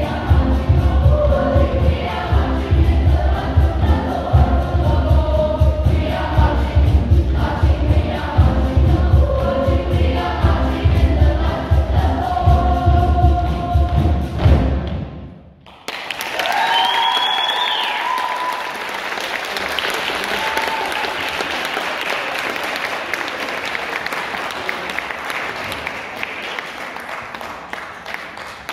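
Boys' choir singing loudly in unison with heavy stamping on a wooden stage. The song stops abruptly about halfway through, and after a second of quiet the audience breaks into applause and cheering.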